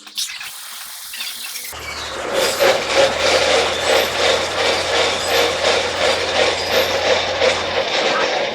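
Loud wheel noise from a Mercedes: a scraping squeal that starts about two seconds in and pulses about twice a second, over a low steady hum.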